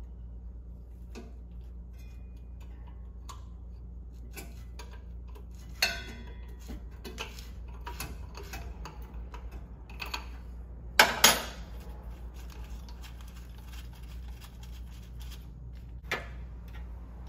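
Hand tools clicking and clinking on metal while the oil pressure gauge sending unit is unscrewed from the engine block, over a steady low hum. A few sharper metal clanks stand out: one about six seconds in, a quick pair, the loudest, about eleven seconds in, and one near the end.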